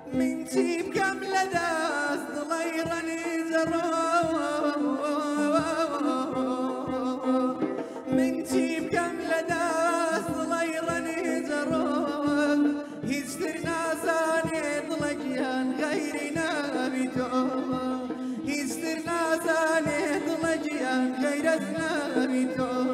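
Male singer performing a Kurdish song in an ornamented, melismatic folk style, his held notes wavering and bending in pitch. Underneath run a steady low drone and the beats of a hand drum from a small traditional ensemble.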